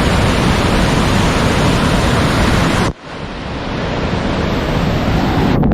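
Steady rushing roar of a waterfall's falling water. About three seconds in it drops out abruptly, then swells back up, duller than before.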